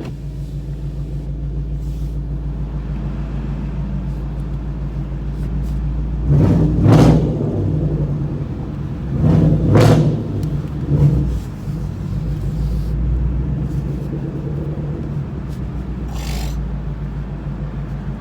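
Straight-piped 5.0 V8 running under way with a steady deep exhaust drone. It swells loudly on the throttle about 7 seconds in and again about 10 seconds in, with a smaller swell just after.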